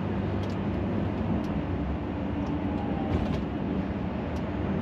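Truck cab interior noise while driving: a steady drone of the engine and road noise with a low hum.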